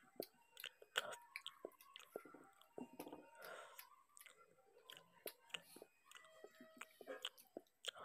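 Faint, close-miked chewing of rice and fried fish eaten by hand: soft, irregular wet mouth clicks and smacks.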